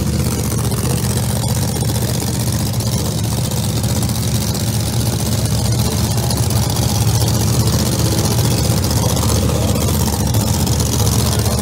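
Drag-race car's engine idling steadily, with no revving.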